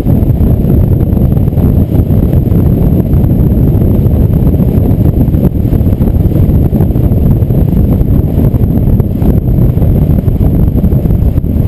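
Loud, steady wind buffeting on the microphone mixed with road rumble, heard from a camera mounted on a bike rack on a moving vehicle.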